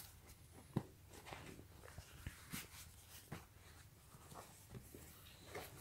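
Faint rustling of cotton pants fabric being handled, with a few soft clicks and taps.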